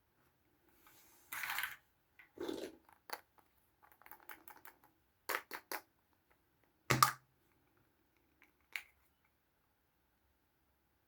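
Small plastic toys being handled: a brief rustle, a dull knock, then a series of light clicks and taps, the loudest a sharp tap about seven seconds in.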